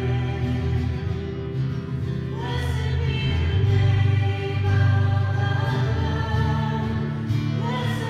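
A congregation singing a slow hymn together, with long held notes over a quiet instrumental accompaniment.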